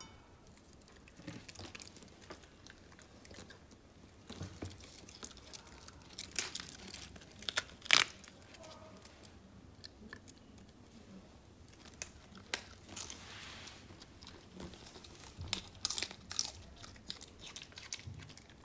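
A small dog crunching and chewing raw cabbage leaves close to the microphone, in irregular bites. The loudest crunch comes about eight seconds in.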